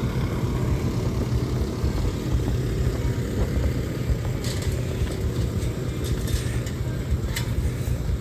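Race trucks' heavy diesel engines rumbling steadily, with a few sharp clicks in the second half.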